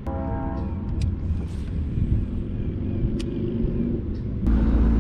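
Steady low rumble with a few sharp clicks and a brief buzzing tone near the start; about four and a half seconds in it gives way to the louder, steady drone of the boat's outboard motor running under way.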